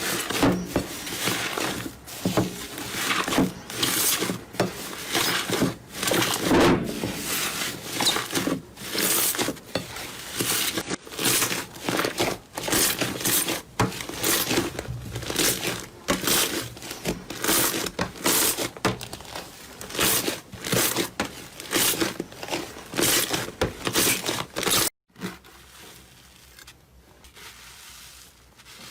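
Slime being squeezed and pressed by hand, a steady run of crackly, crunchy squishes somewhat more than one a second. About 25 seconds in it cuts off, and a much quieter, softer squishing follows.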